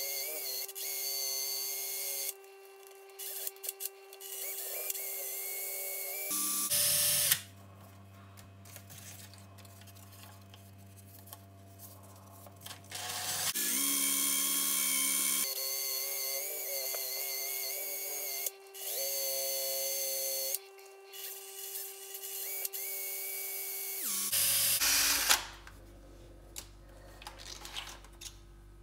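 Cordless drill spinning a vintage screwdriver while fine-grit sandpaper is held against its wooden handle. The drill runs in stretches of a few seconds, stopping and starting again, with its pitch changing from one stretch to the next.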